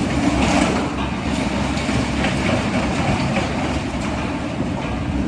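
Heavy diesel machinery running steadily, a rough, rattling engine rumble.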